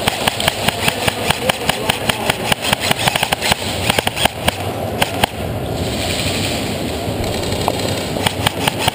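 Echo 1 Stag Arms M4 electric airsoft rifle firing a fast string of shots, about six a second, for roughly five seconds, then a few more shots near the end.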